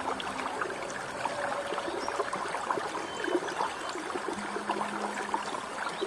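Shallow spring-fed stream flowing over stones: a steady babble of small gurgles and splashes.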